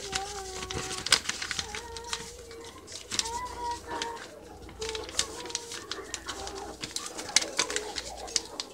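Paper crinkling and crackling as a sheet is folded and creased by hand, in many short sharp crackles. A soft wavering pitched hum sounds underneath in drawn-out notes.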